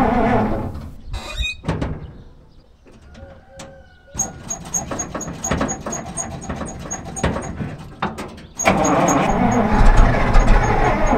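Ural 375D truck's V8 petrol engine running. It drops away about a second in to a quiet stretch with a few short squeaks and clicks, comes back steadier and quieter with a light regular ticking at about four seconds, and turns loud again suddenly about two-thirds of the way through.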